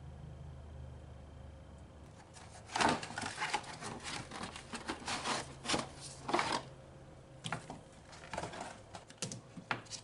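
Plastic air filter housing and pleated paper air filters being handled on a 2004 Honda Civic: a quick run of clicks, clatters and rustling scrapes starting about three seconds in, the first one loudest, with a few more sharp clicks near the end.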